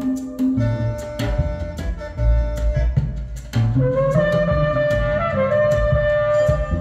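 Recorded instrumental music played through Duntech Senator loudspeakers in the room: a held reed woodwind melody over a bass line and hand-drum percussion with sharp hits. The woodwind line thins out for a couple of seconds and comes back louder about three and a half seconds in.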